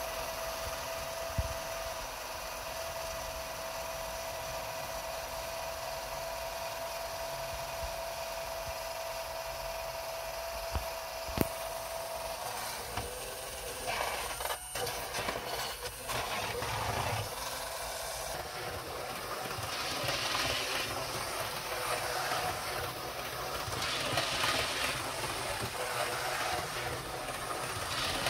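A steady high hum for about the first twelve seconds, then irregular rubbing and clattering as a Hornby OO gauge Class 153 DMU model is handled on the track and run along the rails.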